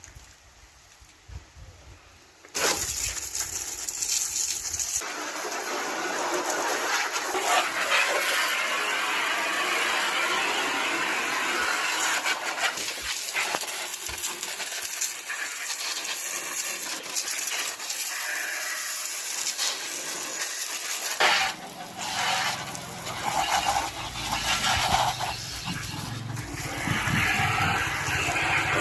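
Homemade pressure washer with a pen-body nozzle spraying water: a steady hiss starts abruptly a couple of seconds in. Later a low hum joins, with the hiss coming and going.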